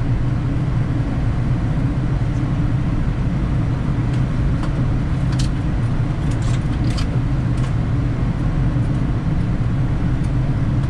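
Steady low rumble of airflow and engines on a Boeing 787 flight deck during final approach, with a few faint clicks about halfway through.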